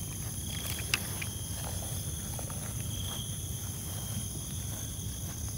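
Insect chorus holding several steady high-pitched tones over a low rumble, with a single sharp click about a second in.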